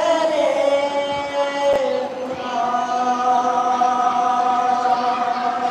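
A man's voice chanting a mourning recitation into a microphone in long held notes: one that sinks slightly, then a second held steady from about two seconds in.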